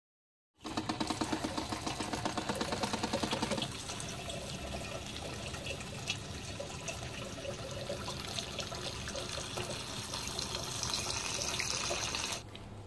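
Tap water running onto broccoli florets in a plastic colander in a stainless-steel sink, rinsing them. It starts about half a second in and stops shortly before the end.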